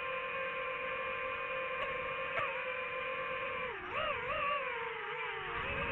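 DJI FPV drone's motors and propellers whining in flight, a steady pitch with several overtones. Near the end the pitch dips and wavers up and down for about two seconds.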